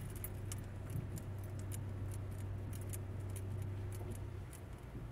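Inside a parked car, a steady low hum with scattered light clinks and rattles like jangling keys. The hum stops about four and a half seconds in.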